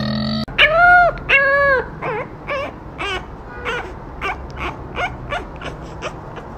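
French bulldog puppy whining and yelping: two loud, long, arching cries, then a run of shorter, quieter yelps about two a second.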